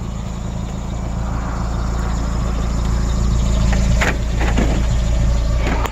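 A vehicle being driven: a steady low engine and road rumble that grows louder, with a few short, brief sounds in the second half.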